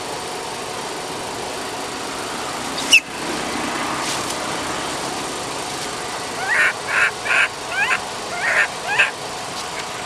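Baby long-tailed macaque giving short, high distress cries, about six in a row in the second half, calling for its mother. A single sharp squeak comes about three seconds in.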